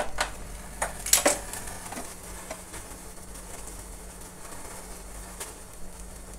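A few sharp metal clicks and clinks in the first couple of seconds as a wire grill rack is moved on a gas stove burner, then a steady faint hiss of the lit gas flame under grilling chicken, with one more click near the end.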